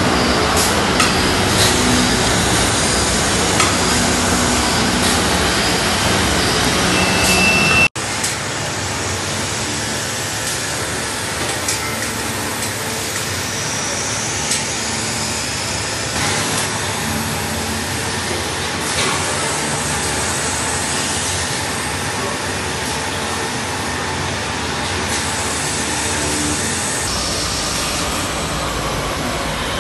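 Glass-processing workshop machinery running steadily, with sharp clinks and clicks of glass being handled in the first part. A cut about eight seconds in changes it to a slightly quieter, even machine hum.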